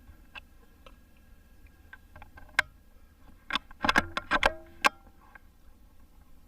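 Sharp mechanical clicks and clacks from handling a PCP air rifle: a single click, then a quick run of loud metallic clacks with a short ring, as of the bolt being cycled to load the next slug.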